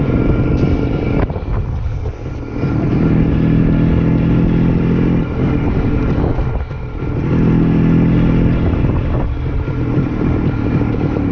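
Vintage ČZ two-stroke single-cylinder motorcycle engine running under way, heard from the rider's seat over wind rush on the microphone. The engine note drops away briefly twice and then picks up again.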